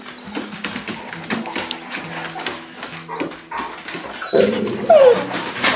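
Dogs whining in thin, high-pitched cries, with a louder falling yelp about five seconds in, over background music.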